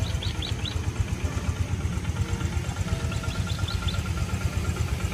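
An engine idling with a steady, uneven low throb. Two short runs of about four faint high chirps come over it, one near the start and one about three and a half seconds in.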